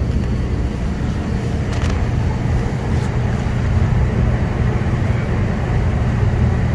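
Reach-in cooler's hermetic compressor energized and humming steadily, with the condenser fan running alongside; the compressor is over-amping, drawing about 21 amps.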